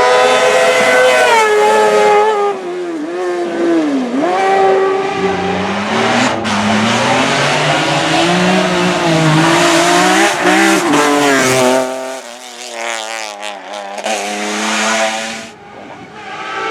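Hill-climb racing car engine revving hard, its pitch climbing and dropping repeatedly through gear changes, then fading away near the end.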